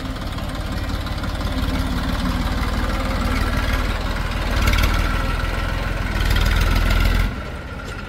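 Heavy diesel engine of earth-moving or farm machinery running steadily. Its revs and loudness rise around the middle and again near the end, and then the sound drops off suddenly.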